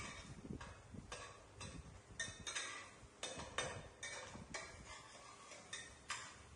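Metal spatula scraping and clinking against a wok while an egg fries, about two irregular strokes a second, over a faint sizzle of hot oil.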